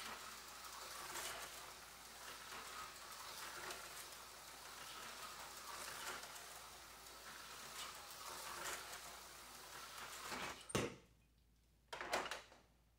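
Aurora HO-scale slot car running laps of a small oval track, a steady whir of its tiny electric motor and pick-up shoes on the rails. It cuts off suddenly near the end, followed by a couple of short clicks.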